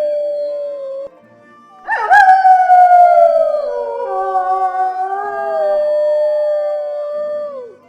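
Wolves howling. One long falling howl ends about a second in, then after a brief pause several wolves start together in a chorus of overlapping howls at different pitches, each gliding slowly and fading near the end.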